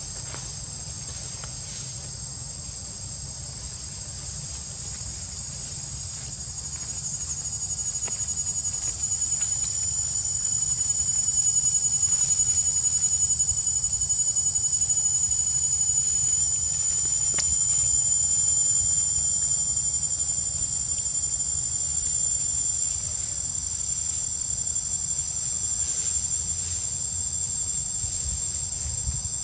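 Chorus of insects: a steady, high-pitched whine with a fainter, lower ringing tone beneath it, swelling louder about nine seconds in, over a faint low rumble.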